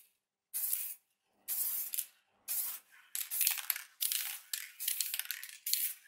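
Aerosol spray-paint can hissing in short bursts: three brief sprays in the first three seconds, then longer sprays with only short breaks as the can is swept over the panel.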